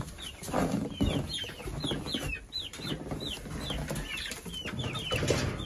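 Half-grown chicks peeping: many short, high, falling peeps, several a second, with some low clucking and a few knocks underneath.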